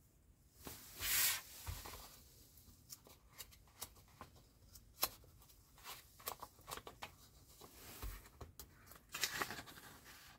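Magazine pages being handled and turned: a soft paper swish about a second in, then scattered light rustles and taps of paper.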